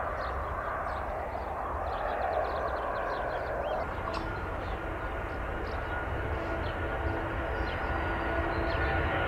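Airliner jet engines on the runway: a broad rushing roar from a Boeing 757 for the first few seconds, then, about four seconds in, the steady whine of an Airbus A330's turbofans, with several held tones.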